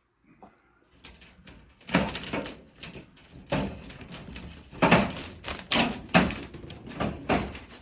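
Irregular scraping and knocking of hard material being moved and handled, starting about a second in.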